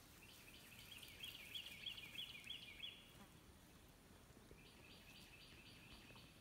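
Near silence, with faint high-pitched chirping: a quick run of short repeated notes lasting about three seconds, then a second run starting about a second and a half later.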